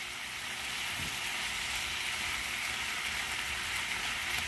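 Shrimp frying in oil and garlic in a nonstick frying pan, sizzling steadily while being stirred with a spatula; they are just turning pink, nearly cooked.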